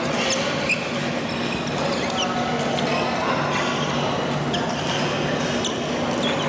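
Busy badminton hall: short sharp squeaks of shoes on the court mats and now and then a racket hitting a shuttlecock on nearby courts, over background voices and a steady low hum.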